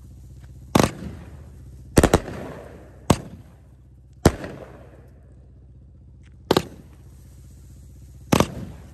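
A 12-shot Epic Sunset firework cake firing its shots: six sharp reports one to two seconds apart, two of them doubled, each trailing off briefly.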